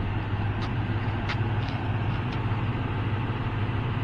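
Tow vehicle's engine running steadily with a low hum while it manoeuvres a boat trailer, with a few faint clicks in the first half.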